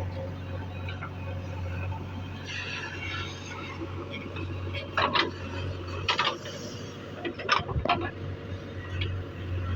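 Diesel engine of earth-moving machinery running steadily with a low hum, with a few sharp knocks and clatters between about five and eight seconds in.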